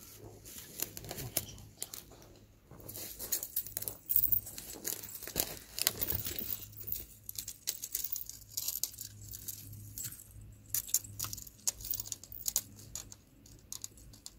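Irregular rustling and crinkling with many light clicks and small rattles, from handling close to the microphone.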